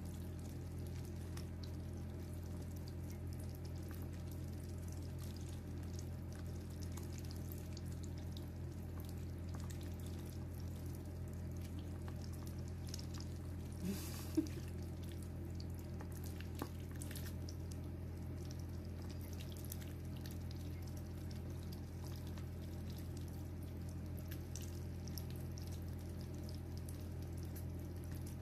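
Ducklings dibbling, working their bills in a shallow tub of water and feed: soft, continual wet splashing and dripping, over a steady low hum. There is one sharper click about halfway through.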